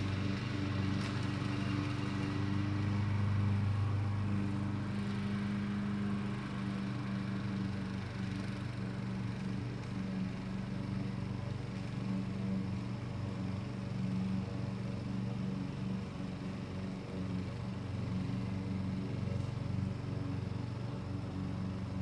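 Lawn mower engines running steadily, a continuous drone whose pitch wavers a little as they work, with wind noise underneath.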